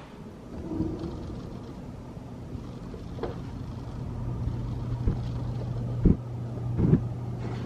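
Steady low hum and rumble of outdoor background noise, with a few dull thumps in the second half.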